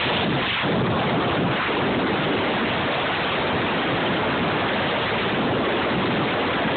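Strong blizzard wind blowing across the microphone: a loud, steady rushing noise with no breaks.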